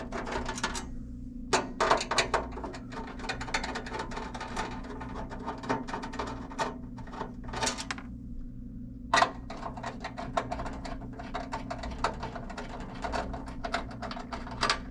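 Screws being backed out of a sheet-metal plate with a hand nut driver: quick, irregular metallic clicking and scraping in short runs with brief pauses, over a steady low hum.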